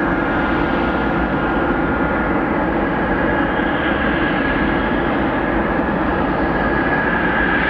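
Jet airliner engines running steadily: a constant whine over a dense rumble, with no rise or fall.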